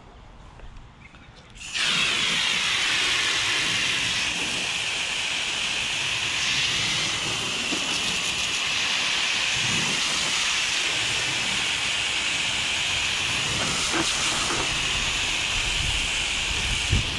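Water spraying steadily onto a car windshield, rinsing off the cream cleaner. The hiss starts about two seconds in and keeps going.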